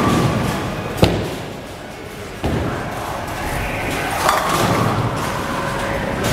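Radical Grease Monkey bowling ball thumping down onto the lane about a second in, rolling down the lane, then crashing into the pins about four seconds in.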